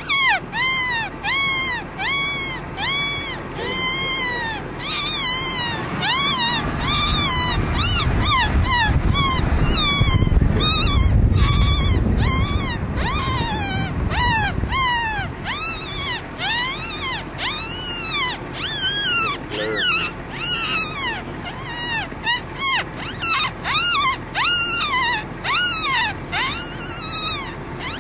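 Wolves calling in a chorus: a rapid run of short yips and brief howls, each rising then falling in pitch, several a second and overlapping at different pitches. A low rumble joins in from about six seconds in and fades some eight seconds later.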